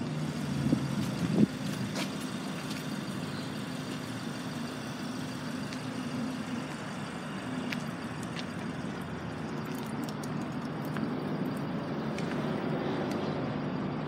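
A steady low engine hum from vehicles, with a single thump about a second and a half in and a few faint clicks.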